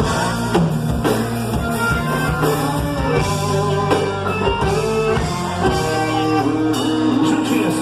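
A live band playing an instrumental passage, with drums and sustained pitched instruments and no singing.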